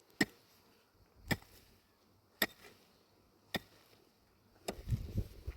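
Four sharp knocks, evenly spaced about a second apart, then a low scraping and rustling near the end.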